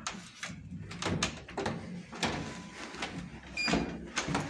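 Hotel room door being worked open: the handle and lock clicking and knocking several times, with a short electronic beep from the lock about three and a half seconds in.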